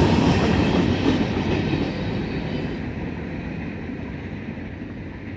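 Freight train's gondola cars rolling past over the rails with a clickety-clack rumble, steadily fading as the last cars go by and the train moves away.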